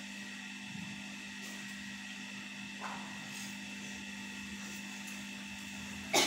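Steady electrical hum with a fainter high tone over quiet room tone, a soft brief sound about three seconds in, and a short louder sound right at the end.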